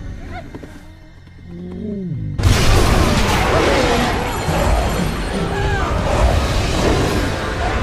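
Animated-film soundtrack: quiet music, then a sudden loud boom about two and a half seconds in that carries on as a dense, loud crashing din under the music.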